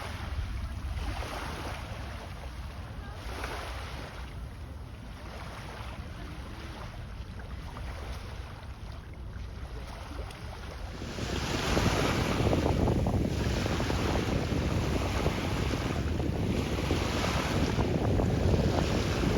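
Wind blowing across the microphone over rushing, splashing sea water, with soft surges about every second. It grows louder a little past halfway.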